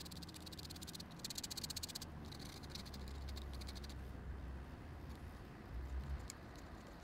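Pen nib scratching on paper in fast hatching strokes for about the first two seconds, then fewer, quieter strokes, and a single sharp tick of the nib meeting the paper near the end.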